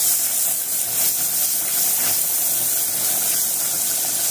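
Sliced onion and garlic sizzling steadily in hot oil in a nonstick frying pan while a silicone spatula stirs them.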